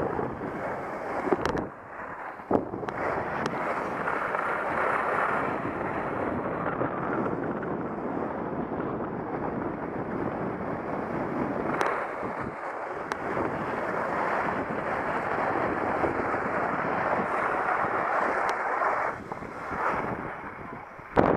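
Steady wind rush on the microphone of a camera moving downhill, mixed with the hiss of sliding over snow, dipping briefly about two seconds in and again near the end, with a few faint clicks.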